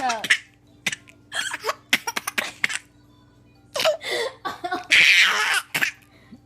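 A young child hiccuping and giggling: short hiccups and bursts of laughter come in quick clusters, with a louder, breathy burst about five seconds in.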